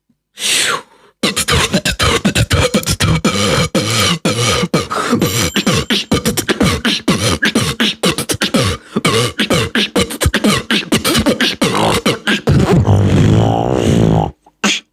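Beatboxer's mouth and voice imitating an object's sound effect: a fast stream of sharp, clicky percussive sounds, ending about 12 seconds in with a held, wavering note of about two seconds.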